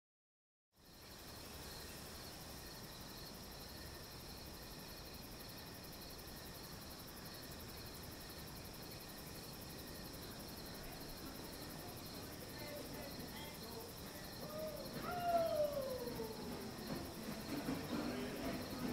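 Outdoor ambience of insects chirping steadily, a high, pulsing drone over a soft hiss. In the last few seconds a couple of falling, gliding tones and some low sounds come in.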